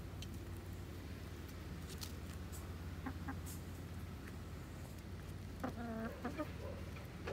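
Brown hens clucking while they feed: two short clucks about three seconds in, then a quick run of clucks near six seconds.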